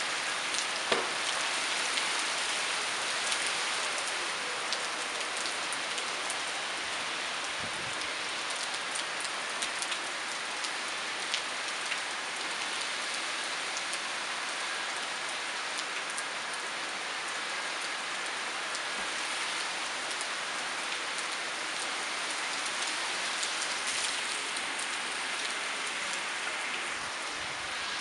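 Heavy rain pouring down: a steady hiss, with scattered sharp taps of drops striking nearby surfaces.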